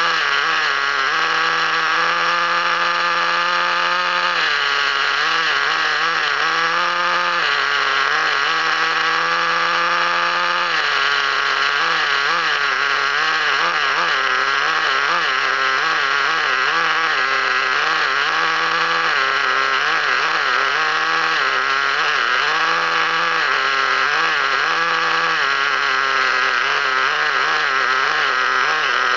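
Traxxas TRX 3.3 two-stroke nitro engine running steadily without load, its pitch wavering and stepping up and down several times.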